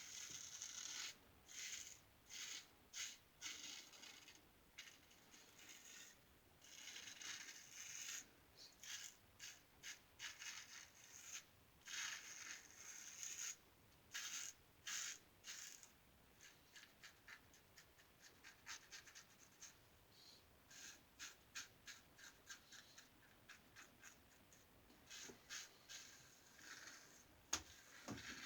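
New Gem lather catcher single-edge safety razor scraping through lathered stubble in a run of short strokes, quicker and shorter strokes in the second half, with a sharp tap near the end.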